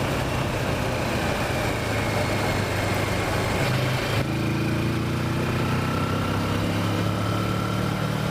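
Kawasaki Versys motorcycle engine running steadily under way, over a constant hiss of wind and road noise. Its note shifts slightly about four seconds in.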